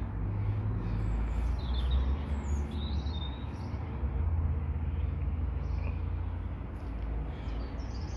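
Small birds chirping in a few short calls, in two spells, over a steady low rumble.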